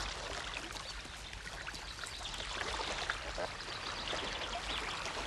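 Water trickling and dribbling with a continual wet crackle of small clicks and drips.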